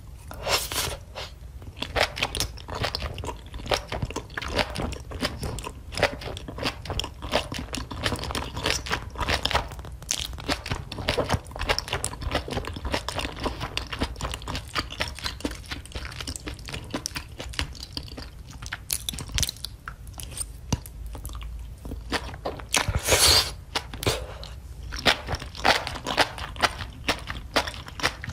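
Close-miked chewing of a mouthful of spicy octopus, a steady run of wet clicks and crunches, with a louder stretch of crunching a little over twenty seconds in.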